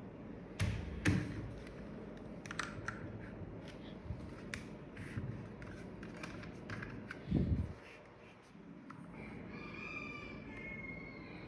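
Keystrokes on a Keychron K4 V2 mechanical keyboard: scattered, irregular clicks of keys pressed one at a time, with a heavier thump about seven seconds in.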